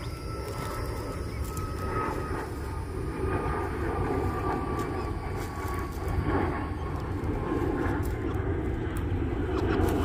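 A steady engine drone whose pitch falls slowly, with scattered light rustles and ticks over it.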